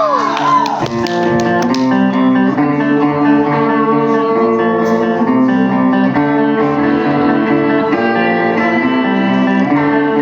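A funk band playing live, with guitar chords out front as the song gets going. A swooping pitch sweep dies away in the first second.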